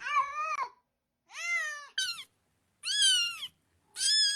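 A cat meowing repeatedly: about five short calls, each rising then falling in pitch, with brief pauses between them.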